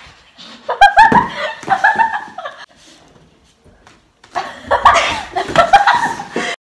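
Two girls laughing in two bouts, the first from about a second in and the second from about four and a half seconds, while straining in a stacked partner yoga pose that collapses. The laughter cuts off abruptly near the end.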